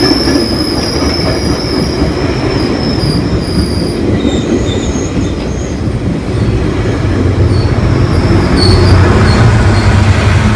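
Train moving along a station platform with its wheels squealing: first a steady high squeal, then shorter broken squeals, over a heavy rumble that grows louder in the second half.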